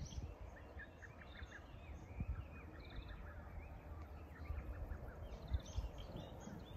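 Small birds chirping with quick calls and a couple of short trills, over a low steady background rumble with a few soft thumps.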